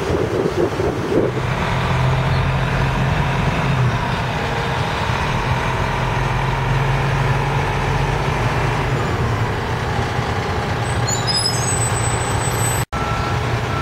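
Fire department tiller aerial ladder truck driving slowly past, its diesel engine running with a steady low drone that sets in about a second in and eases off toward the end.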